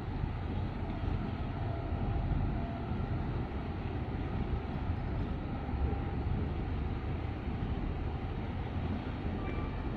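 Low, steady rumble of a large container ship passing close by under way, mixed with wind buffeting the microphone.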